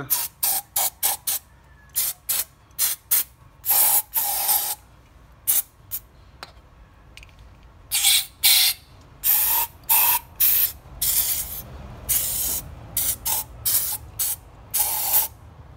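Aerosol can of brake cleaner sprayed in many short hissing squirts, a few held for about a second, into a clutch slave cylinder to flush it clean before a new repair kit goes in.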